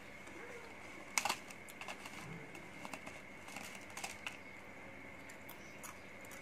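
Irregular sharp clicks and crackles from snack pieces being picked out of a thin plastic tray and eaten. The loudest comes about a second in, with clusters around two and four seconds.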